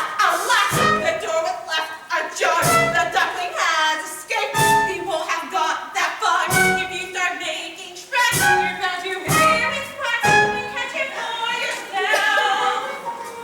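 A musical-theatre number: voices singing over instrumental accompaniment, with a steady beat of about one hit a second.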